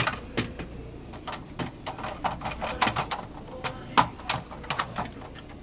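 Plastic ice-maker tray of a refrigerator being pushed back into its slot, with many small clicks and knocks as it shifts around and will not seat.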